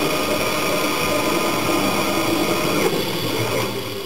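Steady machine noise from the workshop's CNC setup, a running hum with several steady whining tones, fading out near the end.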